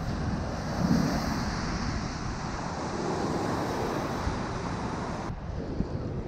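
Ocean surf breaking and washing over the rocks as a steady rush, with wind buffeting the microphone. The sound changes abruptly a little past five seconds.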